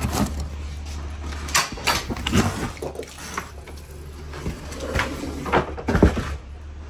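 Irregular knocks, clatters and scrapes as a gloved hand works against the inside wall of a truck trailer, over a steady low hum that stops near the end.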